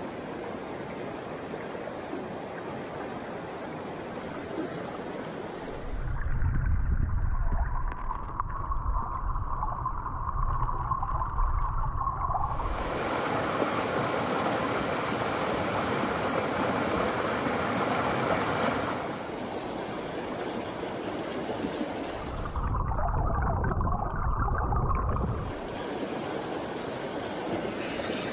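Small mountain stream rushing over rocks and little cascades. The sound shifts from take to take: an even rush, then a full, bright pour of water over a rock ledge, broken twice by a deep, muffled rumble.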